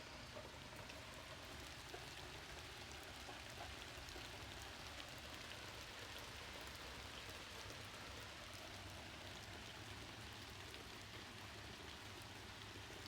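Faint, steady rain falling, with scattered individual drops ticking on a surface.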